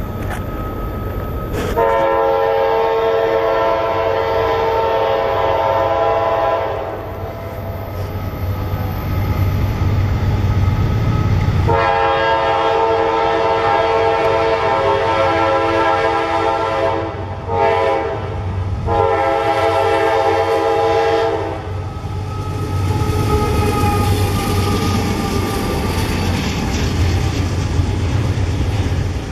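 Diesel freight locomotive's multi-chime air horn sounding two long blasts, one short and one long, the standard grade-crossing pattern, as the train approaches. After the horn, the heavy low rumble of the locomotives and double-stack container cars rolling past continues steadily.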